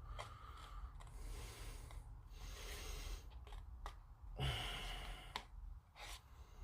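Quiet room with a person breathing close to the microphone, one louder breath about four and a half seconds in, and a few faint small clicks of hand work.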